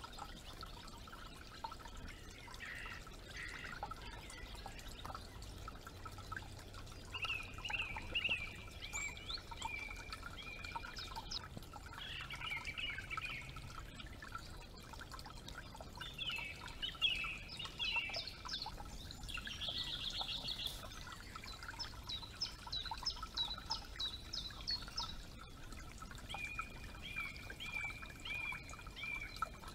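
Small forest creek trickling steadily, with songbirds singing in short trilled phrases every few seconds.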